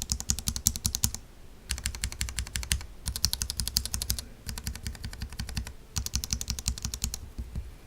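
Mechanical keyboard fitted with tactile switches being typed on quickly in five bursts of about a second each, with short pauses between.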